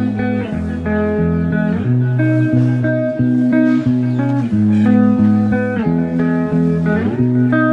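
Background music: a plucked guitar tune over a bass line, note changes about every half second.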